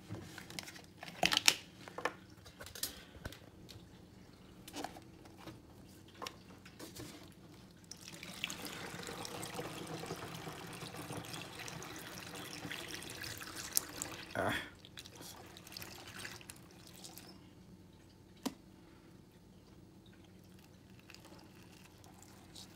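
Windex glass cleaner poured from a plastic refill bottle through a funnel into a plastic jug: a steady stream of running liquid for about nine seconds before it stops. Before it, a scatter of knocks and clicks; one knock during the pour and a single click afterwards.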